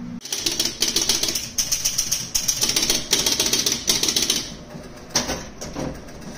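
1976 Gottlieb Surfer electromechanical pinball machine's relays and score mechanism clattering in a rapid run of clicks for about four seconds, then a few scattered clicks. It is working again with a new last-ball relay coil.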